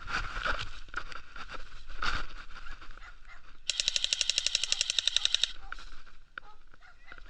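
Electric airsoft pistol firing a full-auto burst of about two seconds, rapid evenly spaced shots at roughly ten a second, about halfway through. Scattered clicks and rustling come before it.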